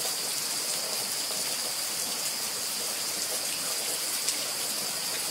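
Heavy rain falling steadily on the yard and plants, an even hiss with no break.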